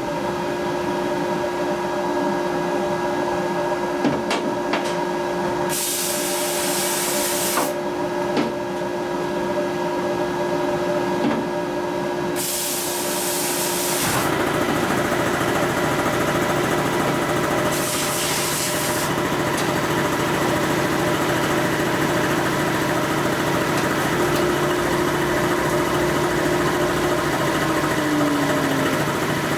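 Glass-bead blast cabinet running, its motor giving a steady hum. Three times the blast gun lets off a burst of hissing air and bead media. About halfway through, a louder, denser running noise takes over.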